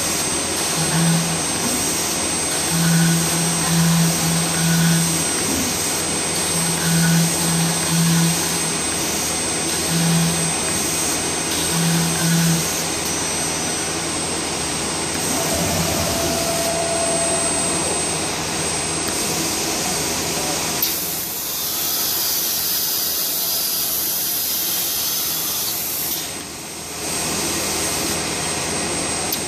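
Router spindle of a vertical CNC panel machine running and cutting a composite panel, with its dust extraction, giving a steady loud whine and hiss. A low hum starts and stops in short spells through the first dozen seconds. About two-thirds through, the sound turns to a higher hiss for several seconds.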